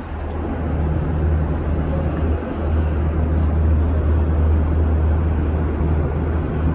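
Roosevelt Island Tramway cabin in motion, heard from inside: a steady low hum and rumble of the ride along its cables.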